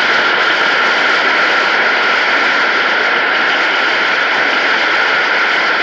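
A large congregation applauding, a dense, steady wash of clapping.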